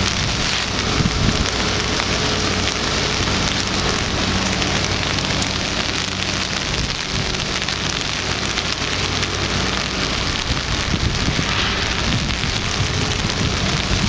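Steady rain falling on wet pavement and railings.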